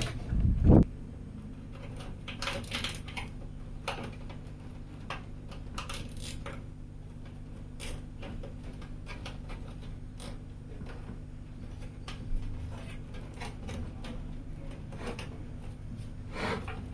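PC case and parts being handled during assembly: scattered light clicks, taps and knocks over a steady low hum, with a couple of heavier thumps at the very start.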